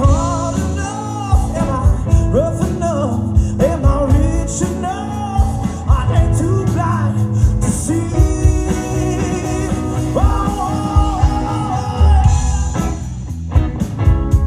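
Live rock band playing a bluesy rock song, with a sung lead vocal line over drums, bass and electric guitar.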